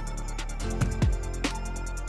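Background music with an electronic beat: steady drum hits and falling bass-drum sweeps over held tones.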